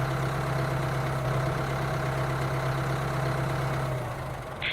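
A motor running steadily with an even, unchanging hum, fading out about four seconds in.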